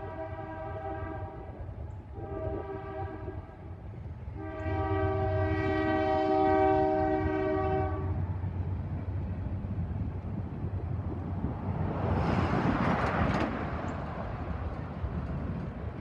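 Union Pacific freight locomotive's air horn sounding a chord: a long blast ending about a second in, a short blast, then a longer blast near the middle, in the grade-crossing pattern, over the steady low rumble of the diesel locomotives. Later a broad rushing noise swells and fades as the train draws near.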